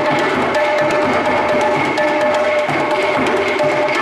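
Rope-tensioned skin drums played in a fast, busy pattern of strokes, over steady held tones from another instrument.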